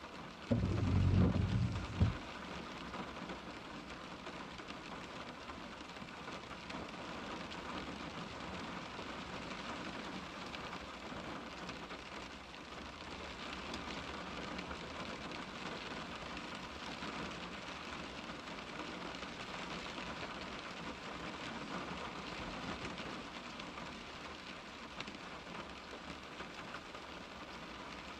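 Rain falling steadily on a car's window glass, an even pattering hiss. Near the start a brief low rumble, about a second and a half long, stands out as the loudest sound.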